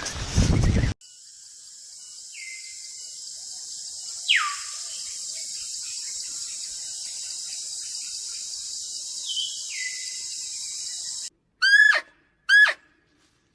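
Animal calls over a steady high hiss: three thin whistles falling in pitch, then two loud, sharp calls sweeping down near the end. About a second in, the tail of a different, louder low sound cuts off.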